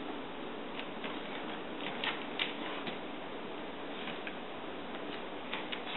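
Dog's claws clicking irregularly on a tile floor as it shifts its feet, over a steady background hiss.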